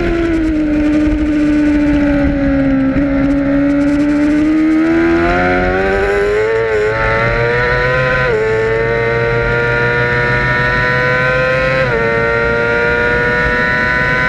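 Middleweight road-racing motorcycle engine heard from an onboard camera: the revs fall away, then the engine pulls hard through the gears, with quick upshifts about eight and twelve seconds in, over steady wind rush.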